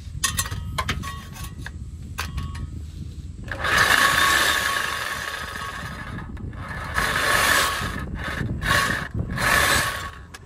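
Reciprocating saw with a fresh blade cutting through an exhaust pipe: short bursts at first, then the saw runs in longer stretches, stopping and starting again several times.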